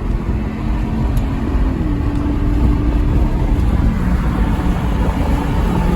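Aston Martin V8 Vantage's naturally aspirated V8 running under way, a steady engine note over low road rumble, its pitch stepping up slightly about two seconds in.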